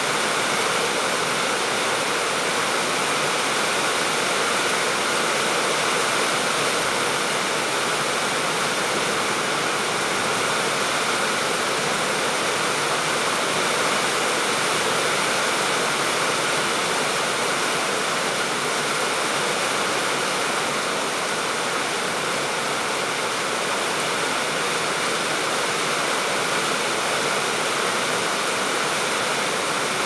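Steady rain falling on tiled roofs and trees, an even hiss that does not let up.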